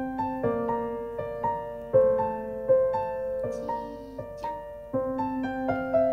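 Background music: a gentle keyboard melody of single notes, each struck and fading, a few per second over a held lower note.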